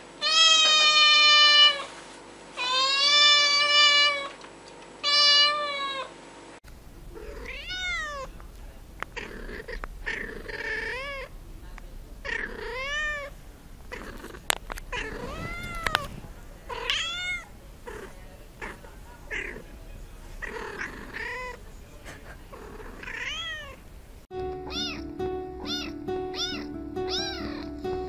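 Cats meowing. A young black-and-white cat gives three loud meows, the first two long. Then comes a long run of short meows about once a second, and near the end a tabby kitten's rapid short meows with music behind them.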